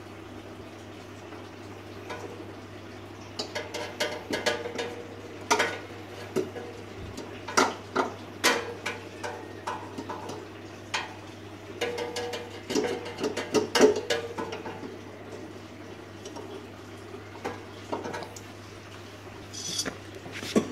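Irregular metallic clicks and clinks of tools working a cotter pin out of a motorcycle's rear axle nut, in several bunches, over a steady low hum.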